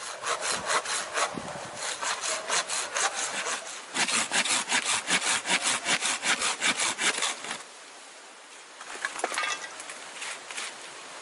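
Hand saw cutting through a log in quick back-and-forth strokes, about three to four a second, with a short pause about three and a half seconds in. The sawing stops about two thirds of the way through, and a few lighter scrapes and knocks follow near the end.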